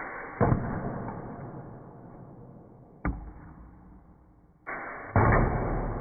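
Sig Sauer 1911 CO2 BB pistol fired three times, about half a second, three seconds and five seconds in. Each shot is a sharp crack with a long fading tail, and the sound is muffled, with no high end. The BBs hit plastic cups on the target stand and knock them off.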